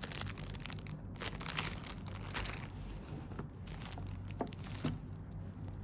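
Packaging rustling and crinkling as a pair of rubber sandals is unwrapped and handled, in irregular bursts, with two light taps near the end over a faint steady low hum.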